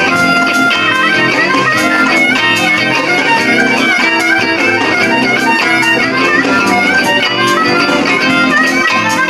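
Electric blues: a Telecaster-style electric guitar plays a steady rhythm through a small amp while a harmonica plays long held notes over it.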